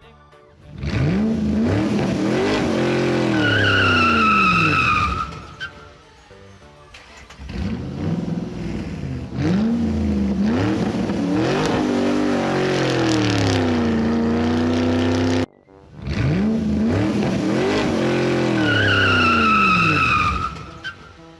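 Car engine sound effect revving, its pitch rising and falling, with a high tyre squeal a few seconds in. A longer stretch of revving follows and cuts off suddenly, then the same rev and squeal come again near the end.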